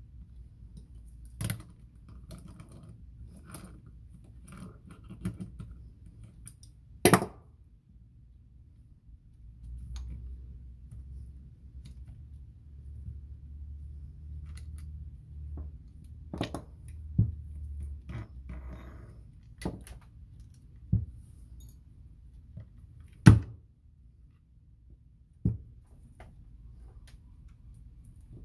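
Small metal reel parts and hand tools clicking and knocking as they are handled and set down during disassembly of a Penn 113 reel, a dozen or so sharp knocks at irregular intervals. A low hum rises for several seconds in the middle.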